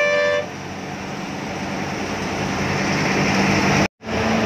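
A short, steady-pitched vehicle horn blast cuts off about half a second in. The drone of the Rajadhani A/C bus's engine and road noise, heard from inside the front of the bus, then grows gradually louder until the sound drops out abruptly for a moment near the end.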